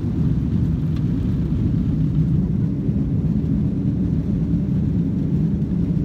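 Steady low rumble of an airliner's cabin in flight: the constant drone of jet engines and airflow heard from a passenger seat.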